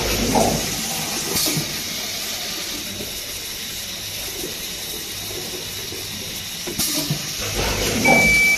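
Rotary popping boba and liquid filling machine running with a steady hiss, broken by a few sharp puffs. A short high beep sounds near the end.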